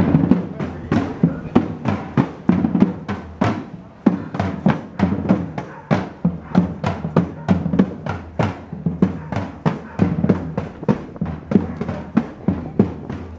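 A hand drum beaten in a steady rhythm, about three sharp strokes a second, over the voices of a crowd of marchers.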